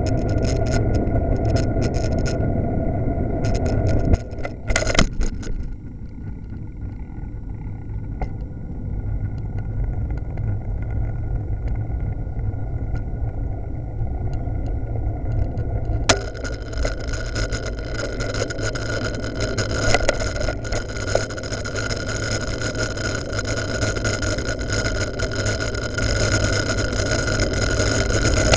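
Wind and road rumble on a bicycle-mounted camera while riding, a steady low rushing with scattered rattling clicks. It eases for a stretch after about six seconds, then builds again from about sixteen seconds in.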